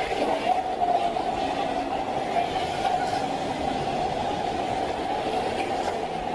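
Wave-pool surf washing through shallow water in a steady, even rush.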